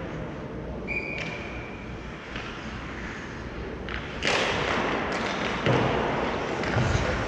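Hockey game play: a steady rush of noise from the playing surface with scattered knocks of sticks and puck. A brief high tone sounds about a second in, and a sudden, louder burst of scraping noise comes a little past halfway.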